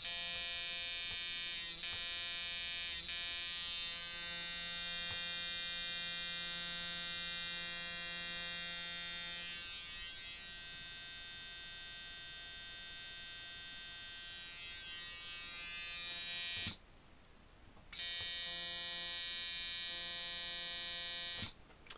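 Coil tattoo machine (a liner with its original frame, coils and armature bar) running at 6.5 volts, a steady electric buzz with a harder hit at this higher voltage. It cuts out briefly twice in the first few seconds, stops about 17 seconds in, starts again a second later and stops just before the end.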